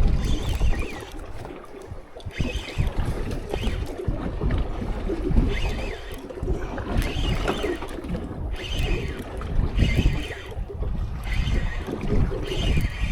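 Strong wind buffeting the microphone in a heavy, uneven rumble, with water splashing against a small fishing boat's hull every couple of seconds.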